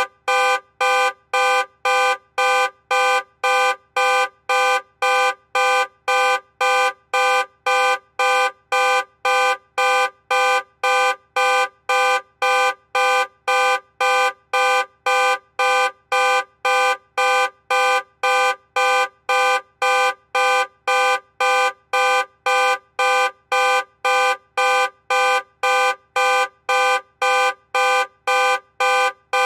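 Car alarm sounding: a loud horn-like tone pulsing on and off about twice a second, at an even, unchanging pace.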